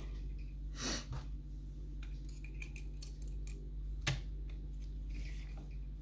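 Small metallic ticks and scrapes of lock-picking tools working inside the keyway of a WMS Merchant British Standard lever mortice lock, with two louder sharp clicks, about a second in and about four seconds in.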